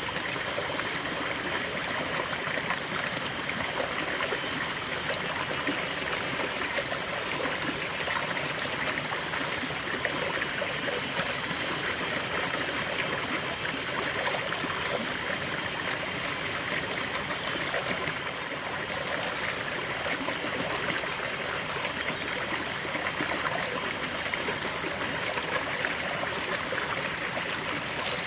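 River water flowing steadily over rocks, a continuous babbling and trickling rush.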